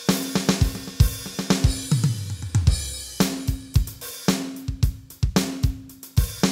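Drum-kit samples played on a Roland SPD-SX sampling pad: a busy pattern of drum and cymbal hits, several a second, with a ringing pitched tone that sounds under the hits and restarts several times.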